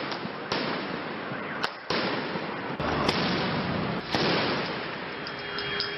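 Fireworks going off in a street: several sharp cracks and bangs over a steady hiss of noise.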